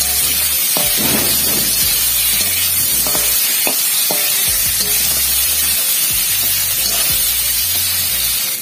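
Cut potatoes, salted and coloured with turmeric, sizzling as they fry in hot oil in a karai. Scattered clicks of the spatula stirring them. Background music with low bass notes plays underneath.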